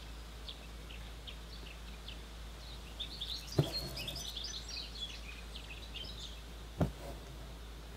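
Small birds chirping in the background, with two short knocks, one about halfway through and one near the end, over a low steady hum.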